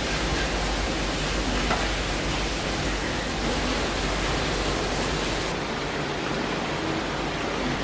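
A steady, even rushing hiss, without clicks or speech.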